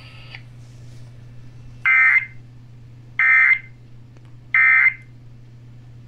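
Three short bursts of the Emergency Alert System end-of-message data code (the warbling 'NNNN' digital tones), each about a third of a second long and about 1.3 s apart, played through a Sangean portable HD radio's small speaker. They signal the end of the alert broadcast.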